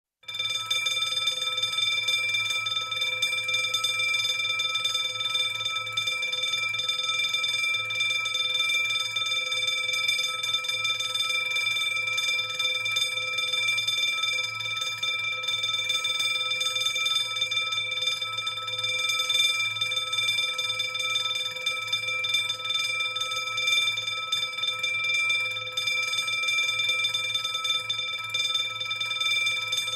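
Burglar alarm bell ringing continuously: a rapid, unbroken metallic ring that holds one steady pitch without rising or falling.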